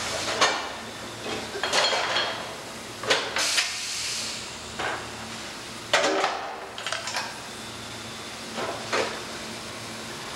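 Pedrick rotary compression bending machine at work on a steel truck-fender channel: irregular metal clanks and knocks as the part is clamped and bent, a short hiss about four seconds in, over a steady machine hum.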